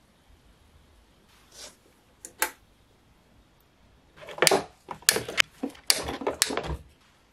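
A few light clicks, then from about four seconds in a quick run of short scrapes and clicks: a knife blade scraping and cutting at the steel wire twisted around a rod over an electrolysis rust-removal tank.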